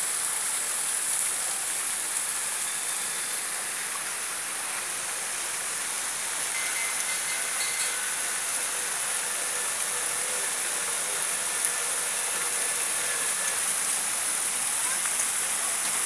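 Steady rushing and splashing of fountain water, an even hiss without breaks, with a few faint high chirps over it.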